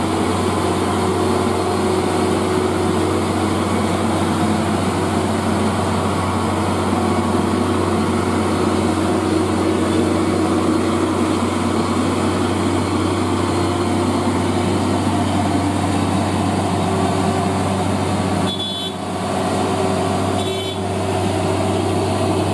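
Fully loaded Hino 500 truck's diesel engine pulling steadily as the truck crawls slowly uphill past. Near the end there are two short high-pitched horn toots about two seconds apart.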